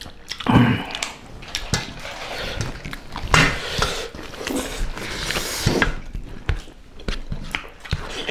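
Eating sounds: chewing, mouth smacking and biting into a chicken leg by hand, with irregular sharp clicks and short rustling smears from fingers working food on steel plates.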